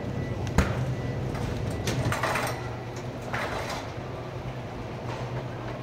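Shopping cart rolling along a smooth store floor, its wheels and wire basket rattling. There is a sharp knock about half a second in and louder rattling around two and three and a half seconds, over a steady low hum.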